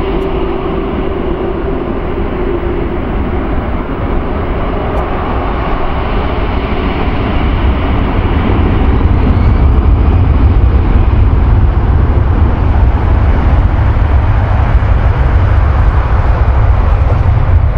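Jet airliner engines at close range: a loud, even rushing noise over a deep rumble that grows louder about halfway through.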